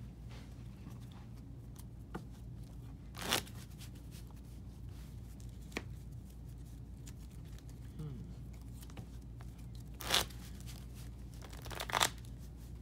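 A deck of sleeved trading cards being shuffled by hand: three short bursts of cards sliding through one another, one about three seconds in and two near the end, with a few light clicks of cards between.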